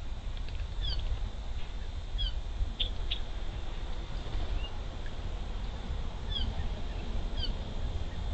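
Outdoor birdsong: a small bird repeats short, high, down-slurred whistled notes about four times over a steady low rumble. Two sharp clicks come about three seconds in.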